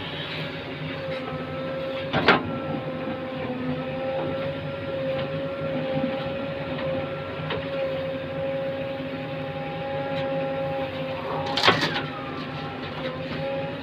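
JCB backhoe loader's diesel engine running steadily under work, with a steady high tone over it. Two sharp metallic knocks come about two seconds in and near the end.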